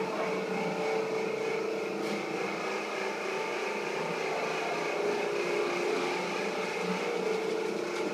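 Steady whining drone of an electric shop vacuum's motor running.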